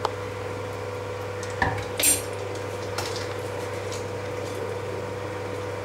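A metal spoon knocking and scraping against a stainless steel pot: a sharp knock about a second and a half in, then a short bright scrape, with a couple of lighter clicks, over a steady background hum.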